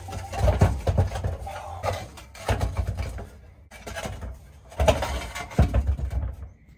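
Heavy Toyota G52 manual gearbox being wrestled and stood upright on the ground: a series of irregular heavy clunks, knocks and scrapes, several of them loud.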